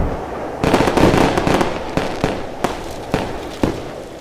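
The rumble of an explosion dying away, followed by a string of sharp bangs and crackles, like fireworks going off, that grow fainter toward the end.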